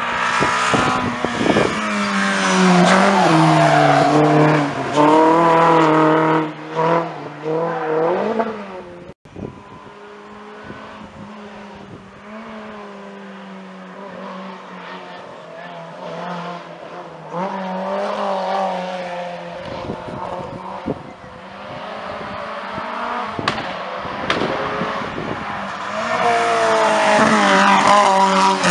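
Historic rally car engines at full throttle on a hillclimb. One car is loud and close, its revs rising and dropping through quick gear changes. After a sudden cut about nine seconds in, a Renault 8 is heard climbing from a distance, revving between shifts and growing louder as it nears the end.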